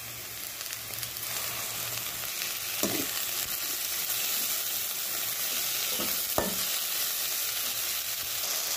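Sliced onions and freshly added chopped tomatoes sizzling in hot oil in a pan, stirred with a slotted spatula, with a few soft knocks of the spatula against the pan.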